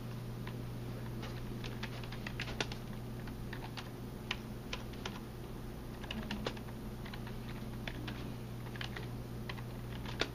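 Scattered, irregular light clicks and taps, like keys being typed, over a steady low room hum.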